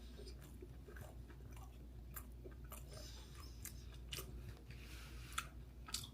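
A person chewing food, with many irregular crisp, crunchy clicks from the mouth and two sharper clicks near the end.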